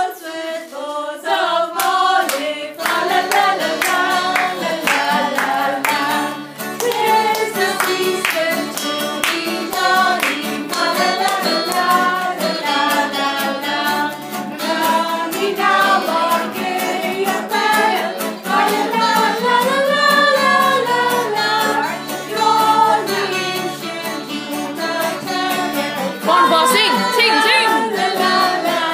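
A group of people singing a Christmas carol together, with hands clapping along in rhythm.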